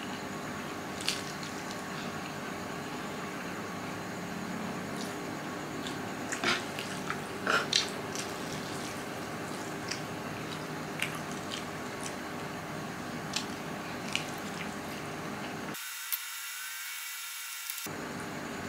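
A person eating instant noodles from a frying pan: chewing and slurping, with scattered sharp clicks of metal tongs and a ladle against the pan. The loudest sounds come in a short cluster about six to eight seconds in, over a steady background hiss.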